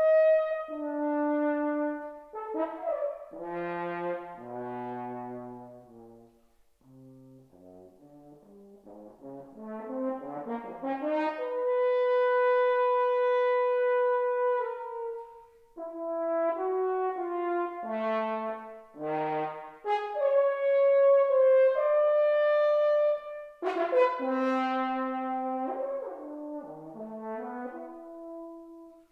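Unaccompanied French horn playing a contemporary solo piece: detached notes leaping between low and high, a soft stretch about a quarter of the way in, one long held note near the middle, and loud accented attacks later on.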